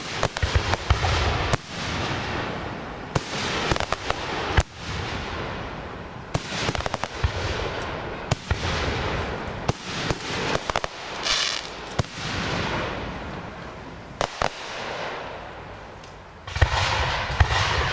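Professional fireworks display: aerial shells bursting in a rapid series of sharp bangs, with a continuous loud rushing of crackle and echoing reports between them.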